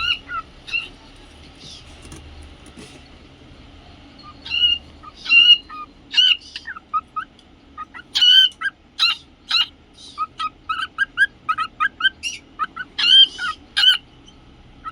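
Cockatiels calling: short chirps that bend up and down in pitch. After a pause of a few seconds they come thick and fast, a run of quick chirps through the second half.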